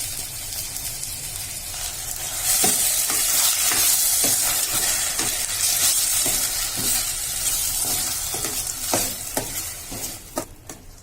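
Ground masala paste frying and sizzling in hot sesame oil in a pan, stirred with a spoon in short strokes about twice a second. The sizzle dies down near the end.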